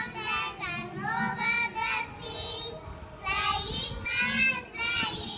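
Young children singing an action song together in high voices, in short phrases with a brief pause about three seconds in.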